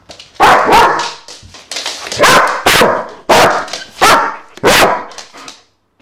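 German shepherd barking loudly: a series of about eight barks, each half a second to a second apart, fading off near the end.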